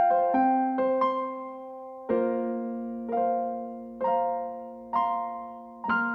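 Solo piano playing a slow instrumental passage: a few single notes, then chords struck about once a second, each left to ring and fade.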